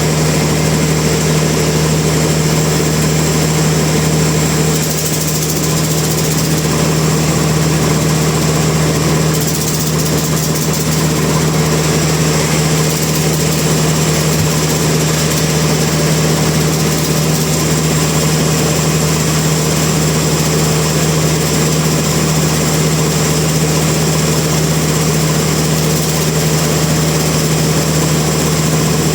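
Sawmill machinery running steadily with a constant engine-like hum, with no distinct cuts or impacts standing out.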